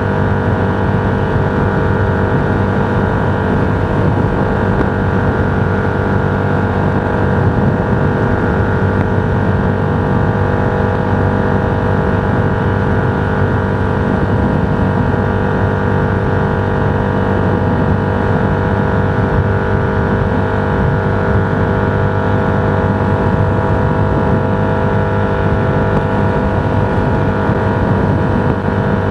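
Steady engine drone and road noise of a vehicle cruising at an even speed.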